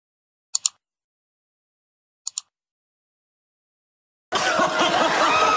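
Two computer mouse clicks, each a quick press-and-release double click, about half a second and two seconds in. About four seconds in, several voices chattering start abruptly.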